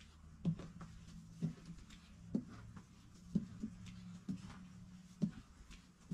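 Footsteps of a person walking down a train carriage's aisle, soft low thumps at about one step a second, with a low steady hum behind them.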